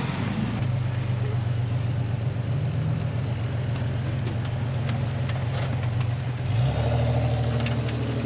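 Off-road vehicle engine running steadily at low revs; its note shifts about six and a half seconds in.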